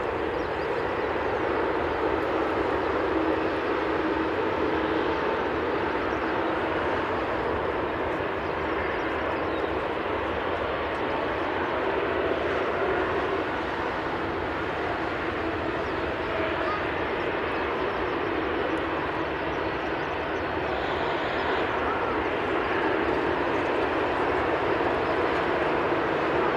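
Boeing 787-9 airliner's Rolls-Royce Trent 1000 turbofans running at taxi power, a steady jet engine noise that grows slightly louder near the end as the aircraft turns toward the listener.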